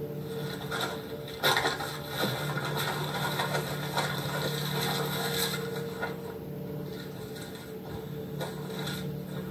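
Small mechanical clicks and rattles of something being handled, the sharpest about one and a half seconds in, over a low steady hum.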